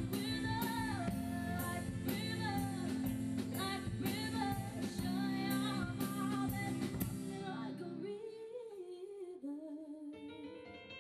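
Live rock band with a female lead singer, electric guitar, drums and keyboard. The drums and band drop out about eight seconds in, leaving a held vocal line and keyboard notes ringing on more quietly.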